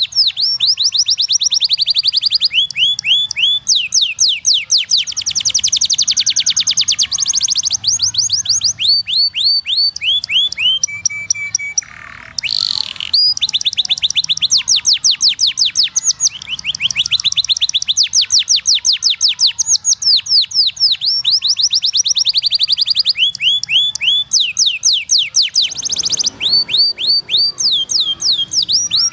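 Canary singing a long song of fast trills, each a run of quickly repeated downward-sweeping notes, with speed and pitch changing from phrase to phrase. About twelve seconds in there is a brief break and a short rush of noise.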